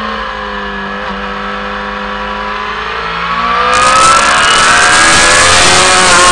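Sportbike engine on a race track, heard from the bike it is mounted on: the note holds, sagging slightly, then climbs as the bike accelerates out of a corner. From about halfway in, wind rushes loudly over the microphone.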